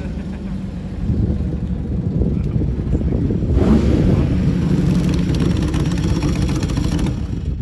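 1956 Jaguar D-Type's twin-cam XK straight-six engine running as the car drives at low speed around cones. It gets louder about a second in and again about halfway through as the car turns toward the camera and comes closer.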